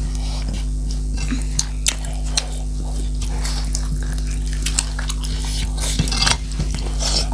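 Irregular light clinks and scrapes of eating utensils against a plate as food is mixed and eaten, over a steady low hum.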